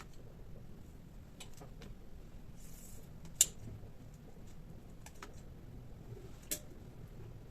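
Sparse light clicks and taps from handling kitchen utensils and food, the sharpest about three and a half seconds in and another near six and a half seconds, over a low room hum.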